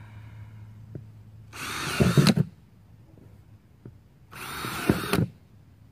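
Cordless drill boring drain holes through the bottom of a plastic battery box: two short bursts of drilling, about a second each, the first about one and a half seconds in and the second about four seconds in.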